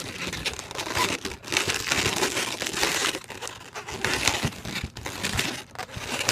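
Latex twisting balloons being handled, twisted and shaped by hand: continuous irregular rubbing and crinkling of the rubber.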